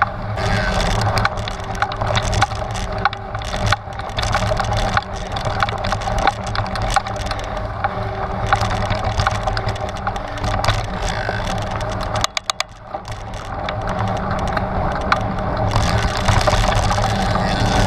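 Trek Stache 9 29+ hardtail mountain bike ridden over a rocky trail: steady rolling rumble with constant rattling and knocking from the bike. About twelve seconds in it briefly goes quieter, with a quick run of clicks.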